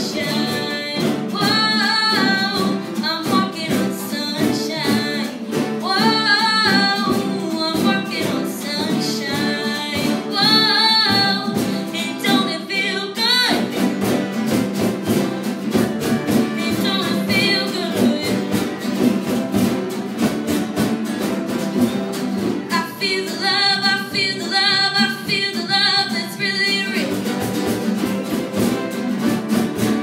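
A woman singing live with acoustic guitar and upright bass accompaniment. Her voice drops out for several seconds around the middle while the guitar and bass continue, then comes back.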